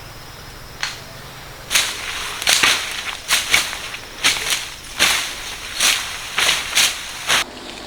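A quick, uneven run of short scraping strokes, about two a second, starting about two seconds in after a couple of lone clicks.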